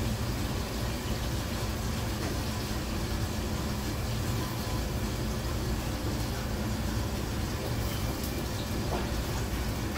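Steady rumbling hiss of a commercial wok range and its exhaust hood running, with no break or change.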